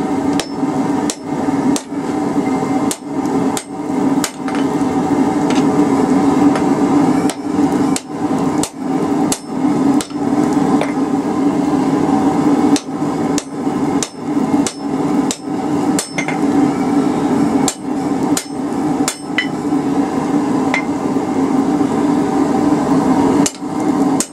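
Blacksmith's hammer striking a red-hot steel bar on an anvil, forging it out with blows about one to two a second and a few brief pauses. A steady low hum runs underneath.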